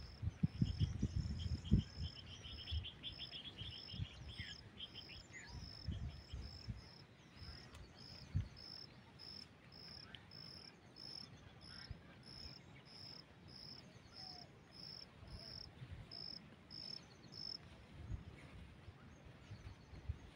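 An insect chirping in a high, steady rhythm of about two to three chirps a second, which stops near the end. A brief buzzy trill sounds in the first few seconds, with low thumps on the microphone at the start.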